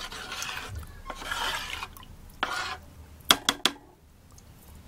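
A spoon stirring thick okpa batter of ground bambara nut, palm oil and water in a bowl, mixing in the salt, with a swishing scrape. A few sharp knocks come a little after three seconds in.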